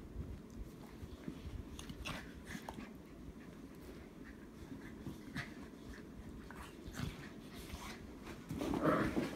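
A yellow Labrador and a black Labrador puppy play-fighting: scuffling and mouthing at each other, with scattered short sharp sounds and a louder burst of noise near the end.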